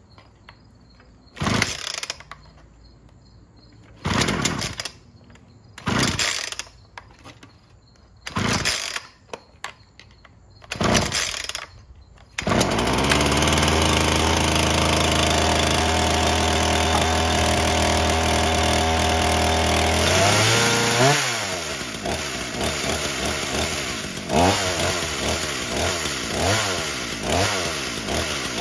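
Ryobi RY3714 37cc two-stroke chainsaw being pull-started on choke: five pulls of the starter cord about two seconds apart without it firing, then it catches and runs at a steady fast idle. About twenty seconds in the engine speed drops and it idles unevenly, its pitch repeatedly rising and falling.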